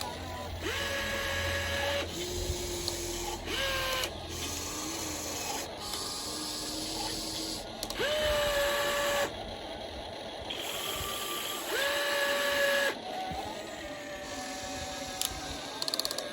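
Small electric gear motors of a radio-controlled toy excavator whining in short runs of about a second each as the boom, arm, bucket and swing are worked in turn. Each run starts with a quick rise in pitch and cuts off sharply, and the pitch changes from one run to the next.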